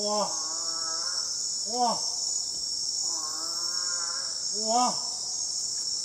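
Steady high-pitched buzz of night insects in tropical rainforest, with five short pitched calls rising and falling in pitch, short and longer ones in turn: an exchange of calls with frogs.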